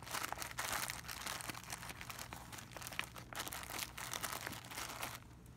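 Plastic crinkling and rustling as a zip-top bag of cotton balls and Q-tips is crammed by hand into a clear vinyl pouch of a roll-up toiletry bag. The irregular crackling stops about five seconds in.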